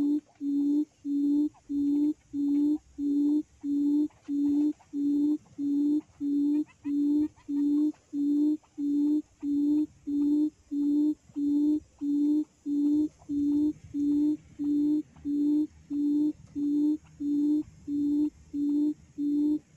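Recorded quail call played through a speaker as a trapping lure: a low, even hoot repeated steadily about three times every two seconds.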